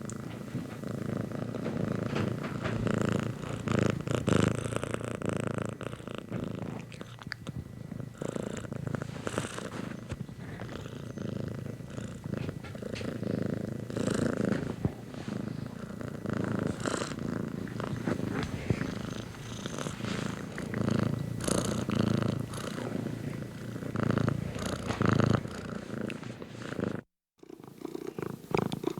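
Domestic cat purring close up. The low purr swells and fades every second or two, and it cuts out for a split second near the end.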